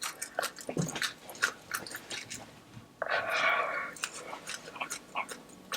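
Close-miked chewing and crunching of the Paqui One Chip Challenge chip: many short sharp crunches and mouth clicks, with a breath of about a second that starts about three seconds in.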